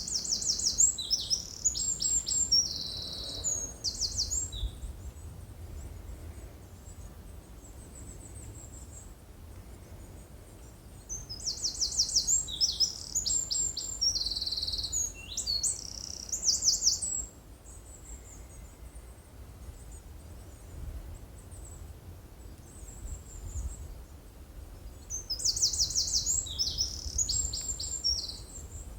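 A songbird singing the same trilled, high-pitched song three times, each a few seconds long with long pauses between, over a steady low rumble.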